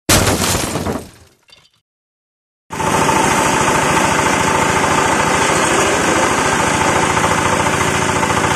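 A brief sound at the start fades out within about a second and a half. After a moment of quiet, a single-cylinder diesel engine runs steadily, driving a compost shredder that is chopping leafy branches, with a fast even engine pulse under a dense mechanical noise.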